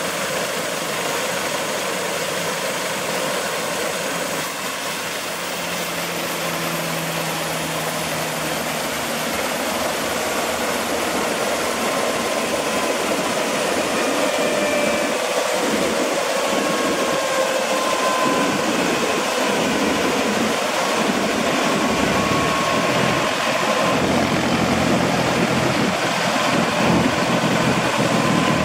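Airbus H145 D3 helicopter's twin turboshaft engines running with the five-bladed main rotor turning slowly on the ground. The sound grows gradually louder, with a faint turbine whine creeping up in pitch.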